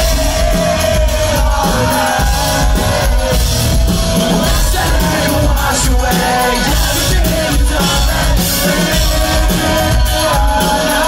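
Live pop-punk band playing loud through a concert PA, heard from within the crowd: the bass and kick drum come in hard right at the start under a long held vocal line, with the crowd shouting along.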